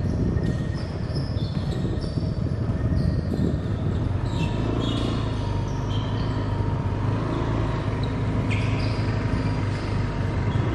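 A steady low mechanical drone, like a running engine, with short high-pitched chirps scattered over it.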